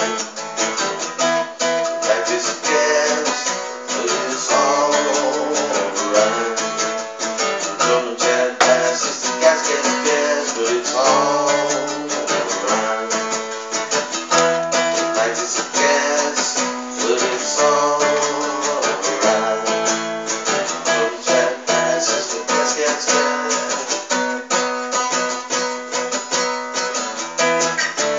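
Acoustic guitar played solo, chords strummed and picked in a steady rhythm, with no singing.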